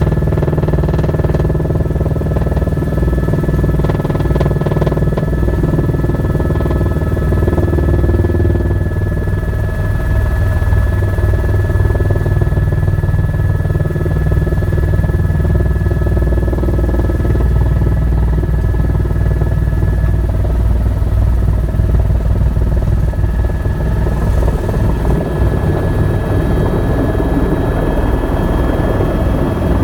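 Tour helicopter's turbine engine and rotor running steadily: a continuous whine over a rapid low beating of the rotor blades.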